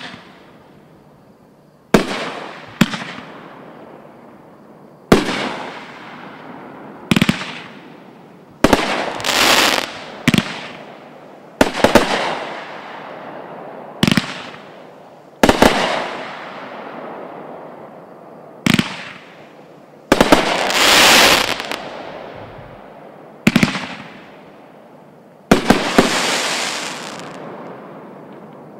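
Fantasy Fireworks "Vengeful Texan" consumer firework cake firing a string of loud shots, about a dozen over the half-minute, some in quick pairs. Each is a sharp bang with a fading tail, and a few trail off into a second or two of hissing crackle.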